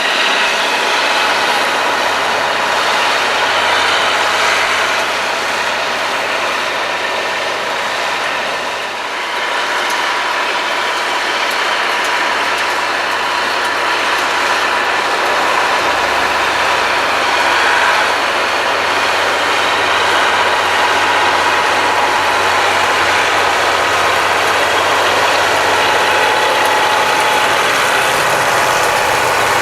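Farm machinery at work: a diesel engine running steadily under load with continuous mechanical clatter from the working machine.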